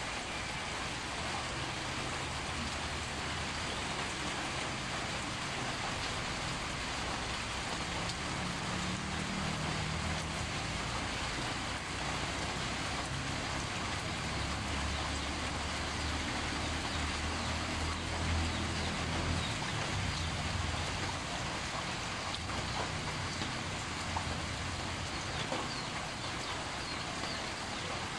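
Steady rain falling on tropical foliage, an even hiss of drops on leaves. A low engine-like hum swells in the middle and fades again.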